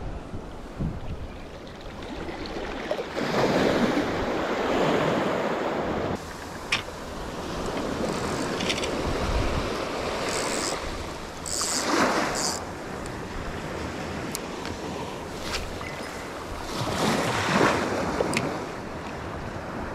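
Small sea waves breaking and washing up the sandy shore. The wash swells up and fades every few seconds, three times over.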